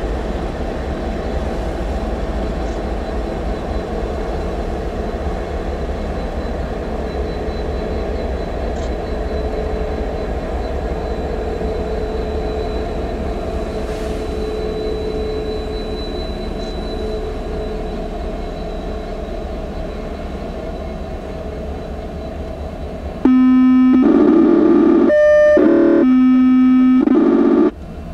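Steady rumble of an approaching freight train, then the lead diesel locomotive's air horn sounds twice near the end, two loud chord blasts with a short break between them.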